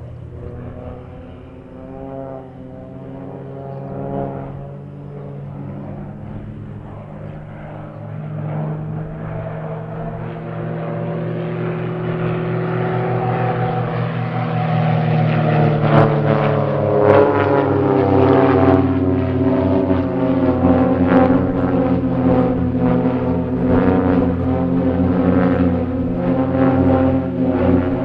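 Piston engines and propellers of a formation of aerobatic display planes, a buzzing drone that grows steadily louder as they approach and stays loud over the second half, the pitch shifting slightly as they pass.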